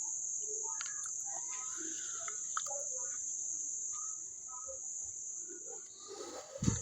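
Steady high-pitched insect trill, like crickets, with faint scattered clicks and rustles and a short thump near the end.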